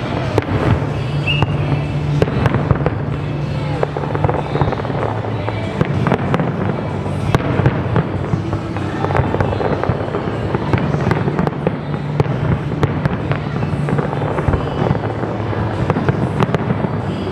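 A large fireworks display going off without pause: a dense, irregular run of bangs and crackles from many shells bursting at once.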